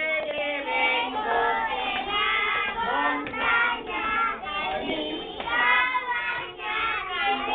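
A group of preschool children singing a Spanish-language Christmas chorus together, with a woman's voice singing along to lead them.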